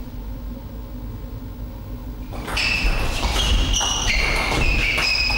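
Table tennis rally starting about two and a half seconds in: the ball clicking off bats and table in quick succession, with the players' shoe soles squeaking sharply on the floor as they move and lunge.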